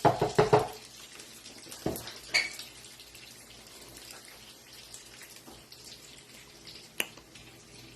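Metal utensil clinking and scraping against a pan and plate while garlic butter and green onions are spooned over the fish: a quick run of clinks in the first second, two more around two seconds in, and one sharp click near the end, over a faint steady hiss.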